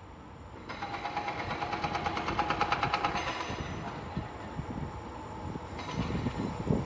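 Approaching freight train hauled by an electric locomotive, its rumble growing louder near the end. During the first few seconds there is a high, finely pulsing hum.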